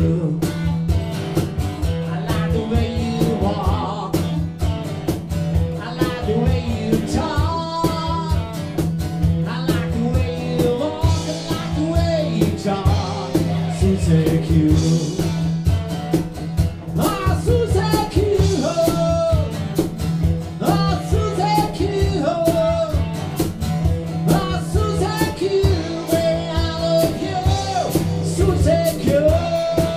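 A live rock band playing: electric guitar, acoustic guitar and drums, with a man singing.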